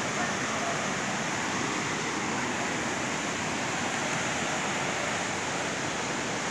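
Steady rush of fast-flowing floodwater, an even noise with no breaks.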